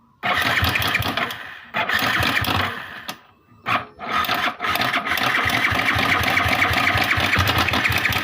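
Yamaha Vixion single-cylinder engine being started. It comes and goes in short bursts at first, then runs steadily from about five seconds in with a fast, regular metallic rattle, which the mechanic later traces to a very loose cam chain.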